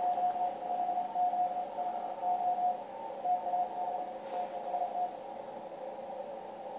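A Morse code (CW) signal received on the 80-metre band by a Yaesu FTdx1200 transceiver: a single steady-pitched beep keyed on and off in dots and dashes over band hiss, heard through the radio's narrow 500 Hz CW filter. The keying stops about five seconds in, leaving only the filtered hiss.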